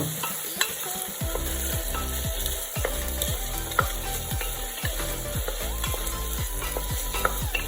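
Chopped onion and ginger-garlic paste sizzling in hot oil in a pressure cooker, stirred with a utensil that scrapes against the metal pot in short repeated strokes, about two to three a second.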